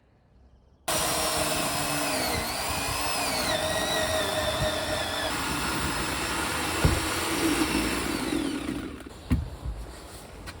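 Chainsaw cutting old wooden railway sleepers, its pitch dipping and wavering under load. It starts abruptly about a second in and dies away near the end, followed by a knock.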